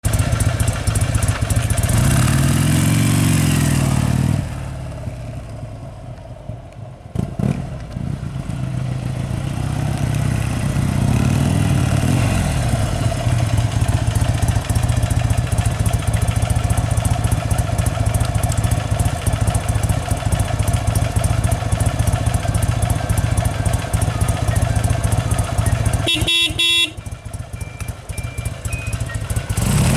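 Buell XB9S Lightning's 984 cc V-twin engine running, revved up and back down twice in the first half, with a quieter spell between the revs. Near the end the horn beeps briefly.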